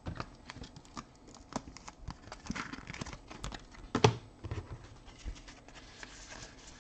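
Trading cards being handled and sorted by hand: a run of light clicks and taps of card on card, with one sharper knock about four seconds in.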